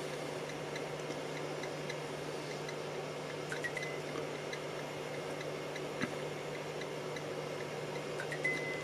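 Steady low electrical hum with a faint, fast, regular ticking from a car-amplifier dyno bench under a 40 Hz sine-wave power test. Two short high tones sound, one about three and a half seconds in and one near the end.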